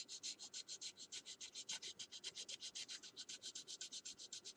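Sanding stick rubbed lightly over a plastic scale model car body in quick, faint back-and-forth strokes, about six or seven a second, smoothing the surface for paint.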